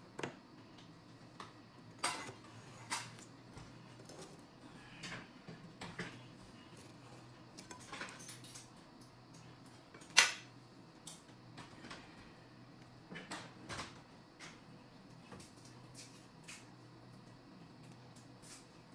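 Kitchen knife tapping and knocking on a plastic cutting board while soft avocado is sliced into wedges: scattered light clicks, with one sharp clack about halfway through.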